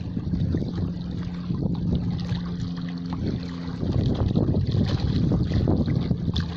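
Sea waves washing onto shore, with wind buffeting the microphone and the surge swelling louder about four seconds in. A low steady hum sounds from about a second in until about four seconds in.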